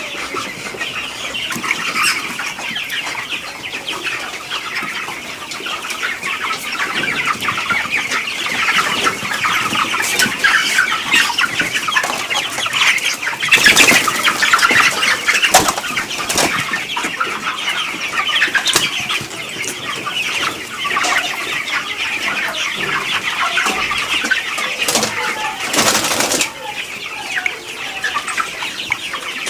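A large flock of broiler chickens in a poultry house peeping and clucking in a continuous dense chorus. Brief louder bursts of noise come about halfway through and again near the end.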